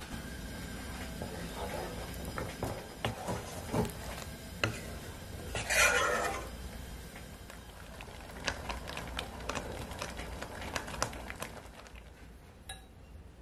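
A spatula stirring thick peanut sauce in a metal pot: scattered clicks and scrapes against the pot, with the loudest, wetter stroke, lasting about half a second, about six seconds in.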